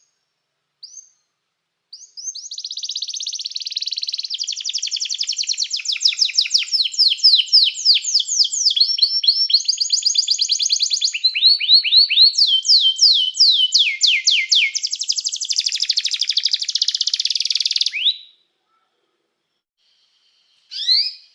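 Domestic canary singing a long, unbroken song of fast trills: run after run of rapidly repeated notes, each run at a different pitch, some sweeping down. The song stops about 18 seconds in; a few short chirps come before it and again near the end.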